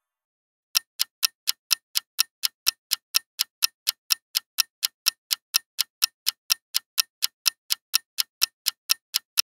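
Clock-ticking sound effect marking a quiz countdown timer: short, sharp ticks at an even pace of about four a second, starting a little under a second in.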